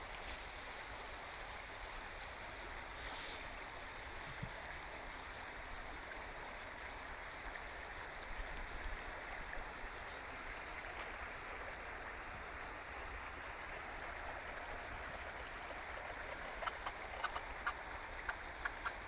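Steady rush of flowing river water, with a run of sharp clicks in the last few seconds.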